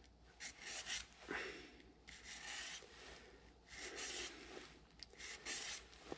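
A small keyway piece being filed by hand on a flat file: faint rasping strokes in four short spells, taking the key down a little at a time to fit a gear's smaller keyway.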